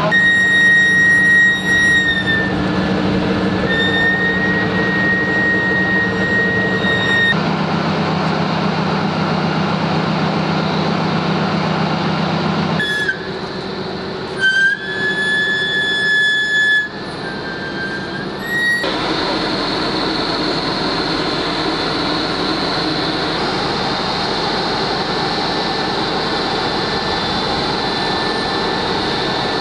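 Heavy vehicle engines and crane hydraulics running under load, with a steady high whine that shifts in pitch now and then. The sound changes abruptly several times, and the last part is a steadier, noisier running sound.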